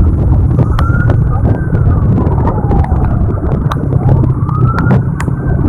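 A siren wailing, rising and falling twice, over the loud low rumble of a heavy vehicle's engine and wind, with scattered knocks and rattles.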